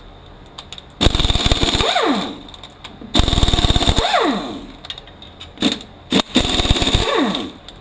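Impact wrench hammering three times, each burst about a second long and ending in a falling whine as it spins down, backing out the 12 mm bolts on the front of a Mazda six-speed manual transmission case. A couple of sharp clicks come between the last two bursts.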